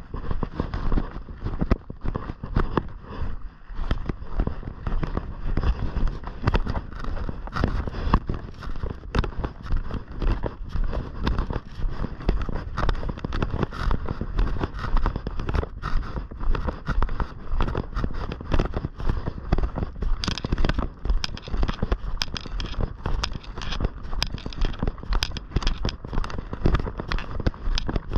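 Footsteps crunching on a snowy, gravelly trail, heard as a dense, irregular crackling, with wind buffeting the microphone.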